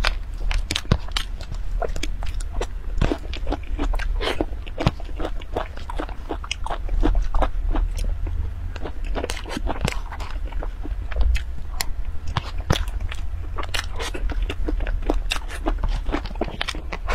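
Close-miked eating sounds: wet smacking and chewing of a soft, creamy food, with many quick sharp clicks. A metal spoon clinks and scrapes on the plate, over a low steady hum.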